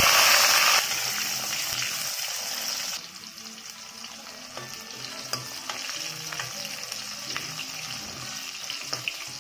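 Shallots and garlic cloves tipped into hot oil and ghee in a kadai, setting off a loud sizzle. It eases about a second in and drops again about three seconds in to a steady, quieter frying sizzle with faint crackles.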